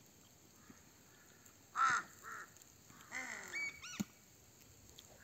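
A crow cawing, a few harsh calls in quick succession, the loudest about two seconds in. A single sharp click near the end.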